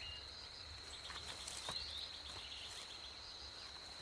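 Tropical rainforest ambience: a steady high-pitched insect buzz, with a few short bird chirps.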